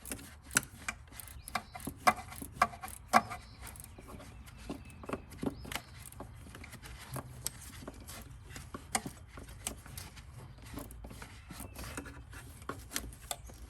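Irregular clicks, knocks and scraping of a hand tool turning a T30 Torx fastener loose in a tight spot, many turns needed to back it out.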